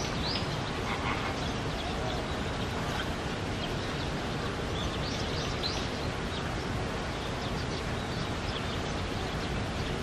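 Steady outdoor background noise with a few short, high, rising bird chirps, one right at the start and a small cluster about five to six seconds in.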